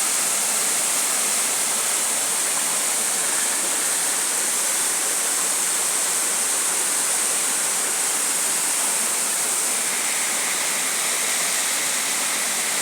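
Waterfall about 30 metres high, its falling water making a steady, unbroken rush.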